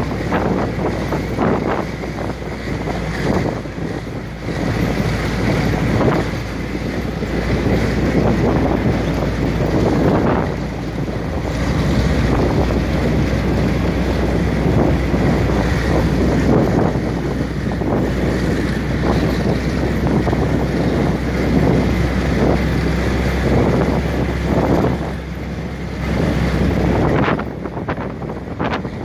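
Open WWII military jeep driving on a gravel track, its engine running with a steady low drone under heavy wind buffeting on the microphone.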